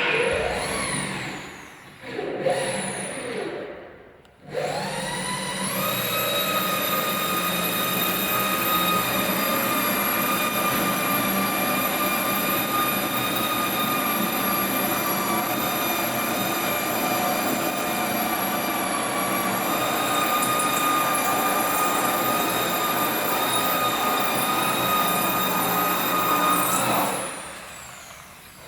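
HSD electric spindles of a three-head CNC router spinning up with a rising whine about four seconds in, running at steady speed with a high, even whine, then spinning down near the end. Assorted shorter, uneven sounds come before the spin-up.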